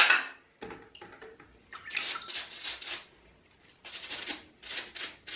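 Soapy water splashing and sloshing in a basin as small plastic mouse parts are washed, in a few short bursts.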